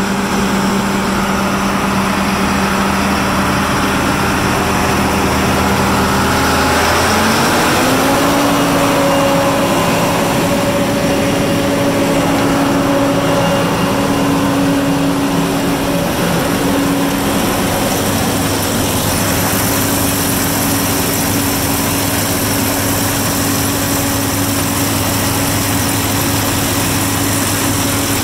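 John Deere 9500 combine's 235-horsepower diesel engine running steadily. About seven seconds in, its pitch rises over a second as the engine speeds up, then holds at the higher speed.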